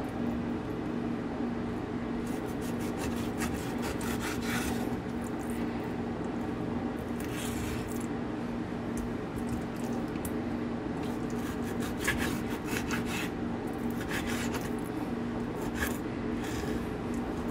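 Knife slicing through raw catfish fillets and scraping on a wooden cutting board, in short spells of quick strokes, over a steady low hum.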